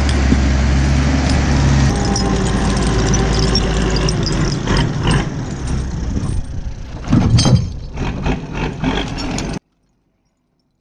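Brimont TM 325 skidder's Deutz five-cylinder diesel engine running close by and steadily; about two seconds in the sound changes to a less even engine note with several loud knocks through the middle, and it cuts off abruptly near the end.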